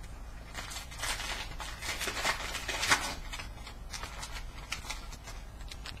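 Foil trading-card pack crinkling and tearing as it is opened by hand, a dense run of rustles for about two and a half seconds, then lighter rustles and clicks as the cards are handled.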